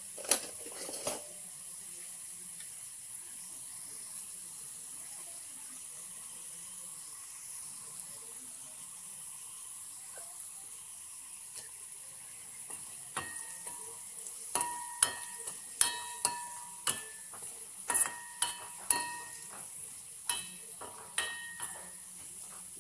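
Oil with curry leaves and onion sizzling steadily in a steel kadai. From about halfway through, a spoon knocks against the pan about a dozen times as it stirs, and each strike makes the metal ring briefly.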